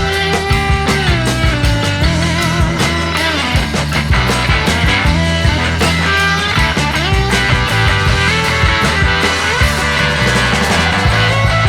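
Rock music with distorted electric guitar, bass and drums, a guitar lead bending and sliding between notes.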